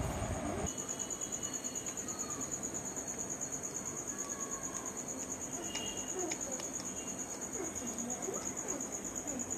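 Crickets trilling steadily in a high, rapidly pulsing note. A low rumble cuts off just under a second in.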